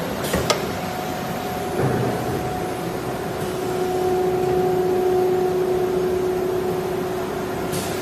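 Electric spindle of a 1325 automatic-tool-change CNC router running with a steady whine over a background hiss, with a sharp click about half a second in.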